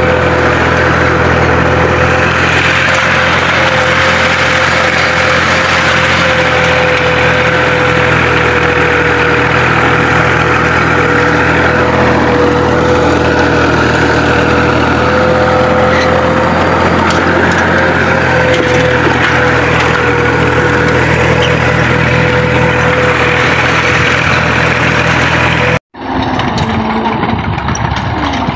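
Diesel farm tractor engine running steadily under load, pulling a tined cultivator and a plank leveller through ploughed soil, heard close from the tractor. Near the end it cuts abruptly to the tractor heard quieter and further off.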